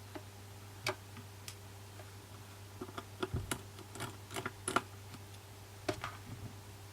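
Scattered light clicks and taps of small repair tools on an iPhone 6s's internal parts as the home button bracket screws are taken out, with a cluster of quicker clicks midway. A faint steady low hum runs underneath.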